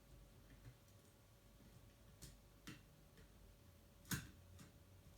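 Near silence with a few short, faint clicks and taps of hand wiring work, the loudest about four seconds in, as the positive lead of a fire alarm horn strobe is being connected.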